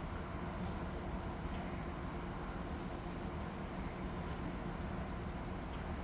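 Steady low background rumble and hiss with a faint steady hum, unchanging throughout.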